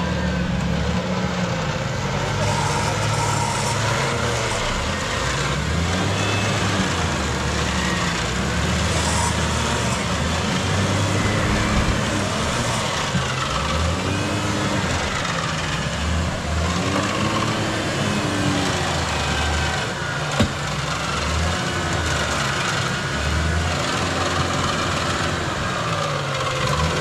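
Toyota Land Cruiser's 4.5-litre engine revving up and dropping back again and again while working a muddy trail. A single sharp knock about twenty seconds in.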